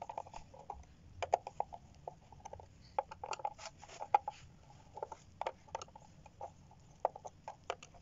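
A screwdriver turning out the small back-cover screws of a digital incubator thermostat controller: irregular light clicks and scrapes of the tool in the screw heads, with the case shifting under the hands.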